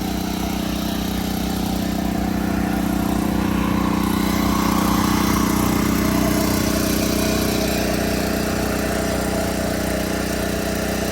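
Steady engine or motor hum holding one pitch, getting somewhat louder around the middle and then easing back.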